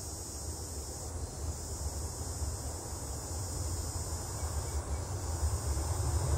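Distant rumble of a Boeing 737 MAX 8's CFM LEAP-1B jet engines as the airliner rolls down the runway after landing, slowly growing louder. A steady high hiss runs underneath.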